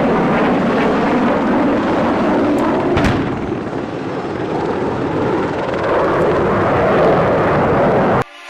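Helicopter running, with one sharp bang about three seconds in; the sound cuts off abruptly just before the end.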